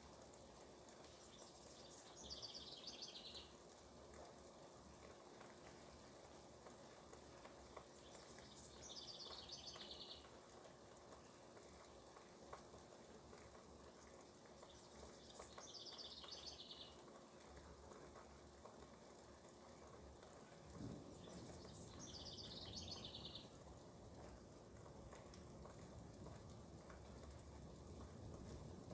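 A songbird outside sings the same short, quickly repeated, falling phrase four times, about every six to seven seconds, over a faint steady hiss of rain. A low rumble comes in about two-thirds of the way through.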